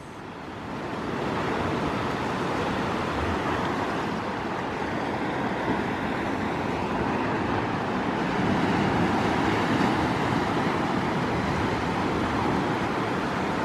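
Sea surf breaking and washing over rocks, a steady rushing noise that builds over the first second and swells a little past the middle.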